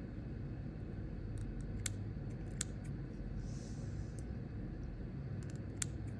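Bird netting being handled and pulled off a snake: three short sharp clicks and a brief soft rustle over a steady low hum.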